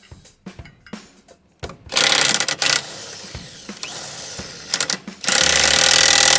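Impact driver hammering on the clutch puller bolt to pull the primary clutch off the crankshaft. There is a short burst about two seconds in and a longer burst near the end.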